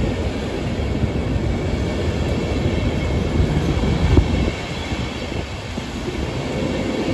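InterCity passenger coaches rolling past along a station platform: a steady low rumble of wheels on the rails, with one brief louder knock about four seconds in.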